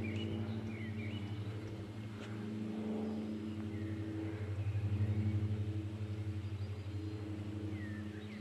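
Twin-engine Vulcan Air P68 aircraft's engines and propellers droning low and steadily with a fine pulsing ripple, swelling to its loudest about five seconds in and then easing off. Birds chirp briefly near the start and near the end.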